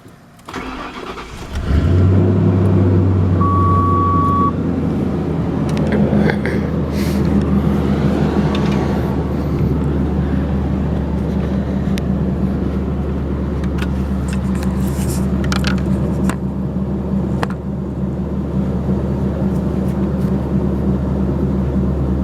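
1995 Lincoln Town Car's 4.6-litre V8 starting after a brief crank and idling through a new dual exhaust: a Crown Victoria H-pipe, hollowed-out rear catalytic converters and Flowmaster mufflers. The idle runs higher for the first few seconds, then settles slightly and stays steady. A short beep sounds about three and a half seconds in.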